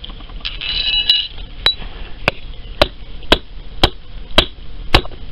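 Hammer blows on a small button of thermite-made iron on a concrete floor, sharp strikes about two a second after a brief metallic clink: a hardness test that the metal takes without denting.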